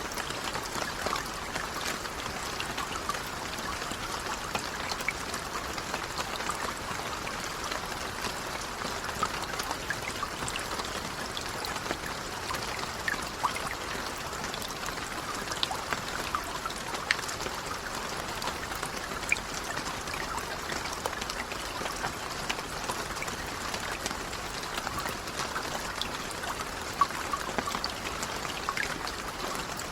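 Light rain falling steadily: an even patter of drops, with the odd louder single drop ticking out of it.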